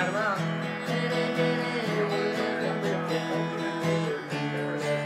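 Acoustic guitar being strummed, playing a tune.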